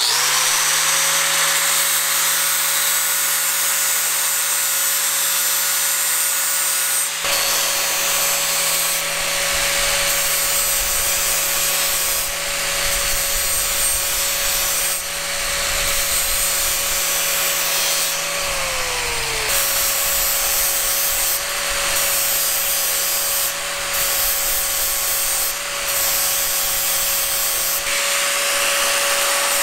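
Angle grinder running with a steady motor whine, then grinding the steel head of a lath hammer, the rasp of the abrasive disc on metal starting about seven seconds in. The whine sags in pitch under pressure about two-thirds of the way through, then picks back up.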